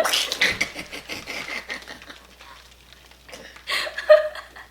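Fluffy slime being squished and stirred, with quick wet crackling and popping that is densest in the first two seconds and then fades. A brief vocal sound comes near the end.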